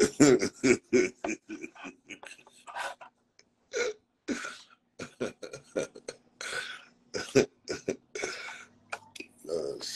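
A man laughing hard: a run of quick pulsing laughs at first, then scattered breathy bursts of laughter and gasps for breath.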